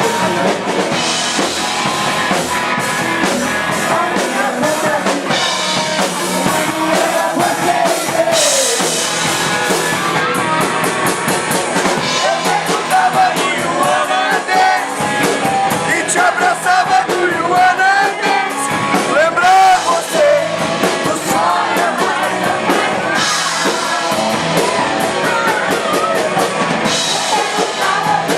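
A rock band playing live: drum kit with cymbals, guitar and a voice, loud and steady.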